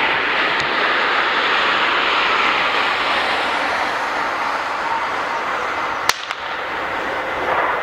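Airbus A319-112's CFM56 turbofan engines at landing power, a steady jet rush as the airliner flares and touches down. One sharp click about six seconds in.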